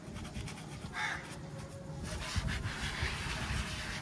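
A hand-held scrubber rubbing over the soapy, foam-covered plastic case of a car battery in an engine bay, an uneven scratchy rustle. A short, higher sound stands out about a second in.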